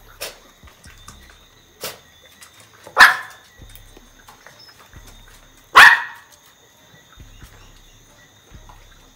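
A dog barking twice, two sharp barks about three seconds apart, while begging for food at a meal.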